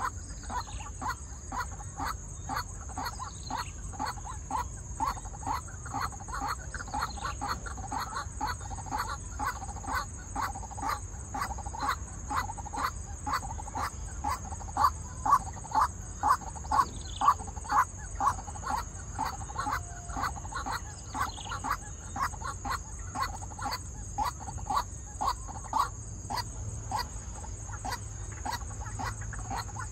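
White-breasted waterhen calling over and over, one short call about twice a second with no break, loudest around the middle.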